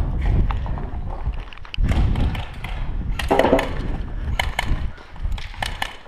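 Footsteps and gear-handling noise with a low rumble, then a run of sharp knocks and clicks in the second half.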